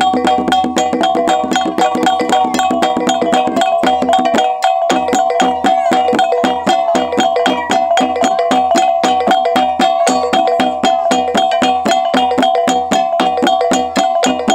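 Ngada gong and drum ensemble (nggo lamba) playing a fast, steady rhythm: ringing gongs over repeated drum beats. The drum drops out briefly about four seconds in, then comes back.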